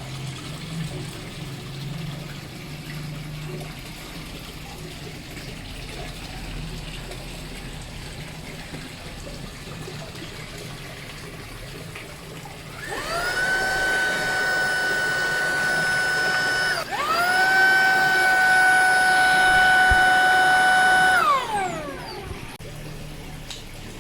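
Tineco A10 Hero cordless vacuum's motor switched on with a high, steady whine, cut for a moment and switched on again, then winding down in pitch as it is switched off.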